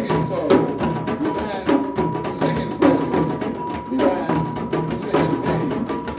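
Live percussion music: sharp hand-drum and wood-block strokes in a steady rhythm, about two a second, over low pitched notes, with a steady high hum running through it.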